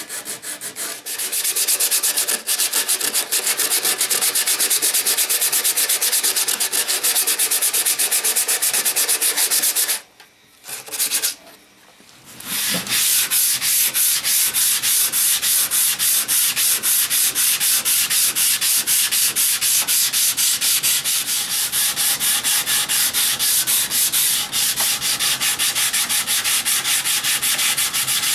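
Fast, even back-and-forth abrasive rubbing on the wooden clock case. It stops for about two seconds near the middle, then starts again.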